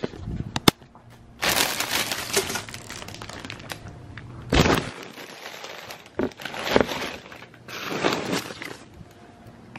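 Packaging crinkling and rustling in several irregular bursts as things are handled and packed into a box, with a couple of sharp knocks about half a second in.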